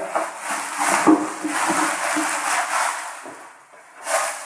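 Black plastic wrapping being pulled and crumpled off a boxed engine, in repeated crackling rustles, with a sharp knock about a second in.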